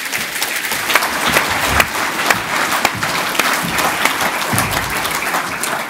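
Audience applauding: many hands clapping together in a dense, steady patter that begins to ease off near the end.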